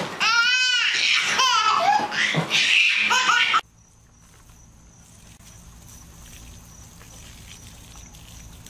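A baby laughing hard in high squeals and belly laughs, which cuts off suddenly about three and a half seconds in. After that only a quiet background with a faint steady high tone.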